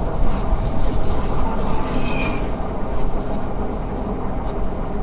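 Semi truck running at low speed: a steady low rumble of engine and road noise, with a faint high squeak about two seconds in.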